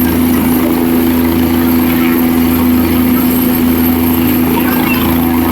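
Helicopter engine and rotor noise, a loud, steady drone with a constant hum.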